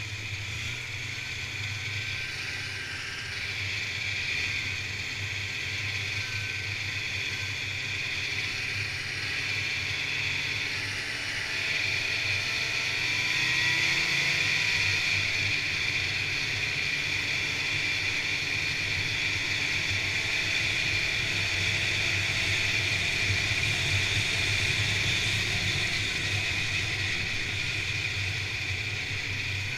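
Snowmobile engine running steadily while the sled cruises along a packed trail, getting a little louder about twelve seconds in.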